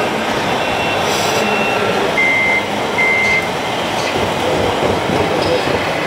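Two short electronic beeps, each about half a second long and less than a second apart, from an RC model truck's reversing-warning beeper, over the steady din of a busy hall.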